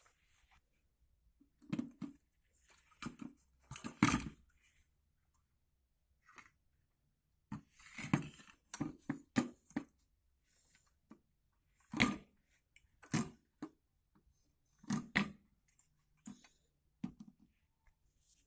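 Irregular knocks, scrapes and clattering of hard parts being handled, with short silences between them. It comes from working on a washing machine's spin dryer, which is not running.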